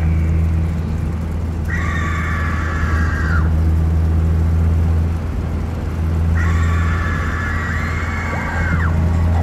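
Steady low rumble of a car driving, heard from inside the cabin, with music playing: two long held high notes, the second one longer, past the middle.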